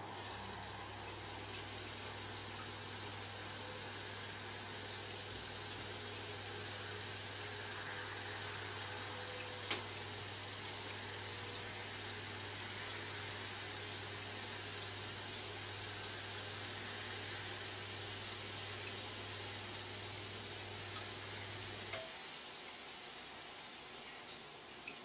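Terrarium misting system running: the micro-mist nozzles hiss steadily over the low, even hum of its pump. About 22 seconds in the pump cuts off and the hiss fades away, with a single brief click near the middle.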